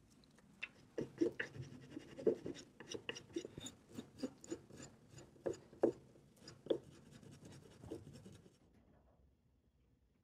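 A thin steel pick scratching and prying dirt and grit out of a crevice in an almond root ball, a quick irregular run of scrapes and sharp clicks that stops near the end.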